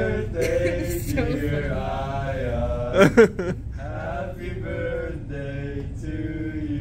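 Male voices singing a slow, chant-like melody on drawn-out notes, with a brief loud burst of sharp sounds about three seconds in.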